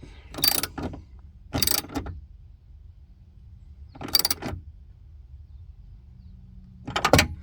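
A ratchet wrench clicking in four short strokes, spread a second or more apart, as the nuts clamping the window glass to a new window regulator are snugged down lightly so the glass does not crack.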